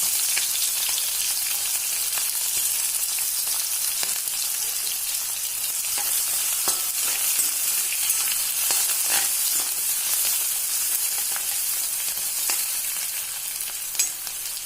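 Chopped ginger, green chillies and garlic sizzling in hot coconut oil with spluttered mustard seeds and fenugreek, stirred in the pan. A steady hiss with scattered small clicks and one sharper click near the end.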